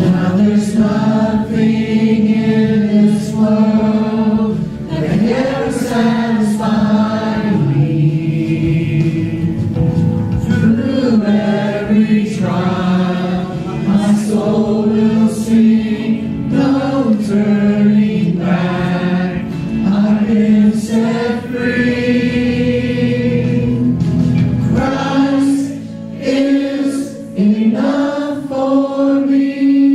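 Several voices singing a church song together, with instrumental accompaniment.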